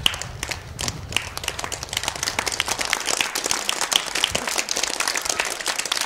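Audience clapping, a dense patter of hand claps. Under it, the low rumble of a Yamaha motorcycle engine fades away over the first two or three seconds as the bike leaves.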